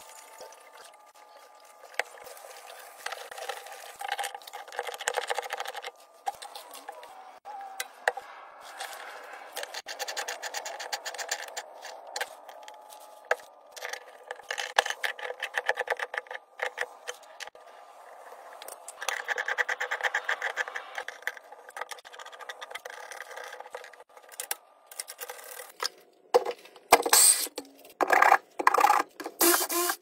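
Hand tools working on copper and brass pipe fittings: a string of clicks, scrapes and rattles, with two stretches of rapid ticking and louder, sharper knocks near the end.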